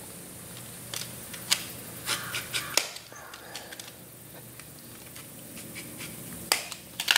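Razor knife scoring a sheet of hard black plastic along a metal straightedge: faint scratchy strokes and sharp clicks, several in the first three seconds and again near the end.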